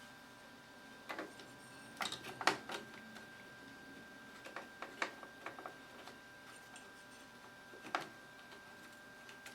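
Scattered clicks and plastic snaps of DDR RAM modules being pressed into a Power Mac G4's memory slots and the slot latches closing: a click about a second in, a quick cluster around two to three seconds, several more around five seconds and one near eight seconds. A faint steady high tone runs underneath.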